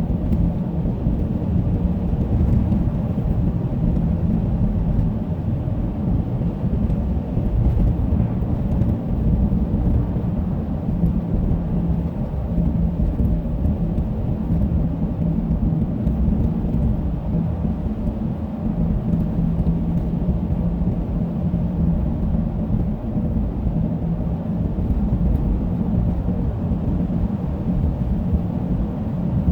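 Steady low road rumble heard inside a car's cabin while driving on a snow-covered road on studded winter tires, with a faint steady hum underneath.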